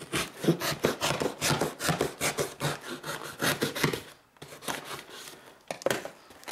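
Folding knife blade sawing through packing tape and cardboard along a shipping box's edge in quick rasping strokes that ease off about four seconds in. A couple of knocks come near the end.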